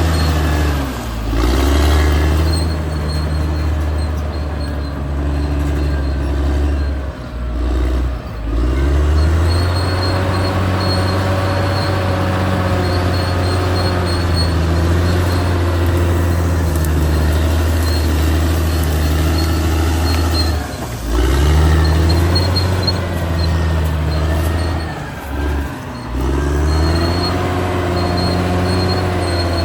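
Caterpillar D6R XL bulldozer's diesel engine running under load, its note dropping briefly and recovering several times as it works. Wavering squeals from its steel tracks run alongside.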